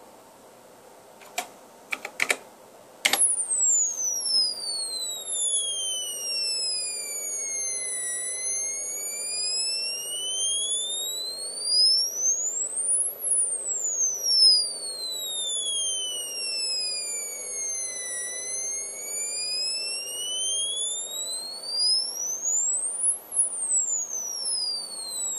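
A homemade 6502 computer's sound output, driven by a BASIC program, playing an electronic tone that sweeps slowly down in pitch and back up again over and over, each fall or rise taking about five seconds. A few sharp clicks come just before the tone starts, about three seconds in.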